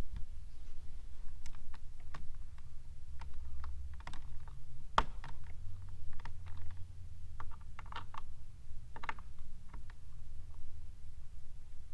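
Irregular light clicks and taps of plastic brackets, trim and screws being handled and fitted by hand, with one sharper knock about five seconds in.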